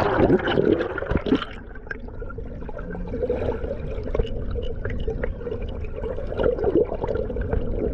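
Water splashing as it goes under, then a steady muffled underwater rush and gurgle of water streaming past the submerged action camera beside a sailboat hull moving under sail.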